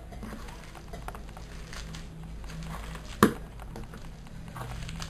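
Hands kneading mashed plantain and cheese on a plate: soft, faint squishing and light taps over a low steady hum, with one sharp knock about three seconds in, louder than anything else.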